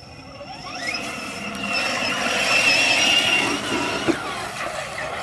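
Electric motor and gearbox of a radio-controlled scale crawler truck whining as it drives through muddy water: the whine rises in pitch about a second in, holds steady, and drops away about four seconds in, with a single knock at that point.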